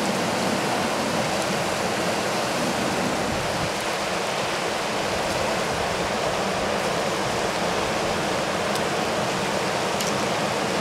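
Fast mountain river rushing steadily over rocks and boulders in a whitewater riffle.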